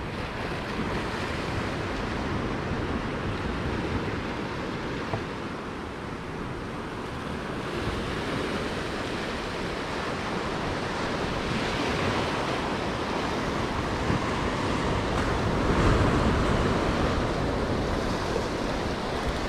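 Ocean surf washing against a rocky shore in rough swell: a steady rush that surges louder a few times, with wind on the microphone.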